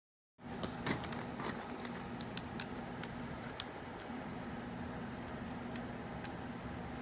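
Scattered light clicks and taps of hands handling a plastic Transformers Hot Rod toy car, over a steady low hum of room noise; the sound cuts in abruptly just after the start.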